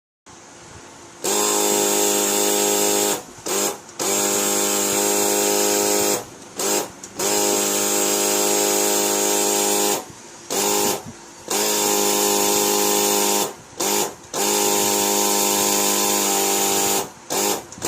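Electric start of an SP Giant thermal fogger buzzing at a steady pitch each time the start button is held, in runs of two to three seconds with short taps between; the pulse-jet never fires, so the fogger fails to start.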